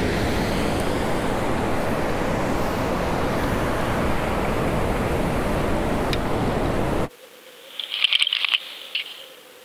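Steady surf and wind rushing on the microphone at the water's edge, which cuts off sharply about seven seconds in. It gives way to much quieter underwater audio: a faint steady hum with a brief burst of high crackling and clicks.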